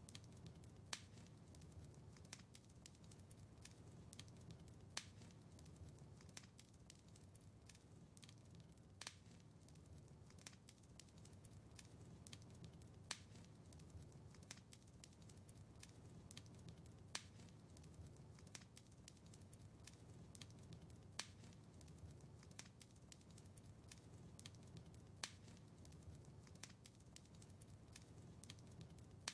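Faint crackling of a wood fire: many small snaps, with a sharper pop about every four seconds over a low, even rumble.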